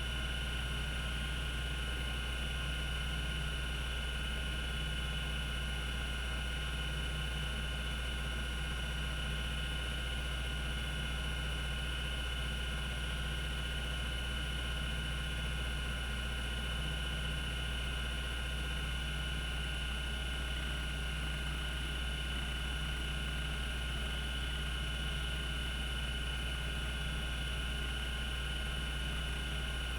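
Cogito Systems CG-912 5.25-inch hard disk drive spinning steadily at its 3600 RPM running speed, a constant low hum with a thin high whine over it and no seek clicks.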